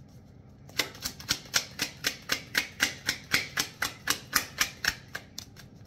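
A deck of oracle cards being shuffled by hand, a quick regular run of card slaps about four a second that starts about a second in and stops near the end.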